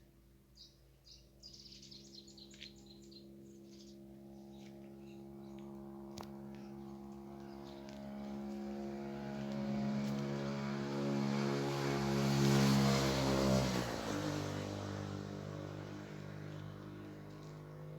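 A motor vehicle approaches and passes by, its engine growing louder and then dropping in pitch as it goes past about fourteen seconds in, before fading away. Birds chirp in the first few seconds.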